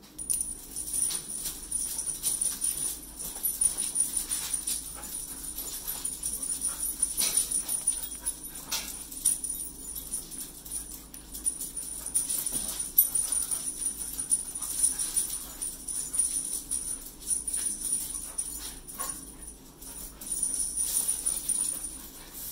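A small dog tussling with a cat toy on a string: scattered clicks and taps of claws and the toy on a hard floor, with light jingling. A steady thin high-pitched whine runs underneath.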